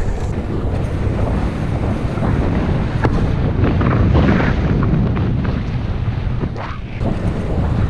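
Wind buffeting the microphone of a camera carried on a moving bicycle: a loud, steady rumble from the rush of air while riding.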